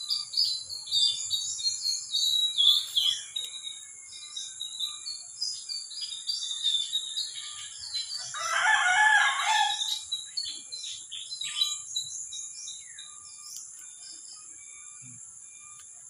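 Small songbirds chirping and twittering in quick, high calls, busiest in the first half and thinning out toward the end. A rooster crows once about eight seconds in, the loudest sound. A steady high-pitched drone runs underneath.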